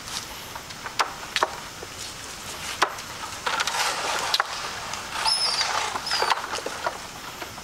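A machete chopping on a wooden plank: several sharp knocks at uneven intervals. A brief high chirp sounds about five seconds in.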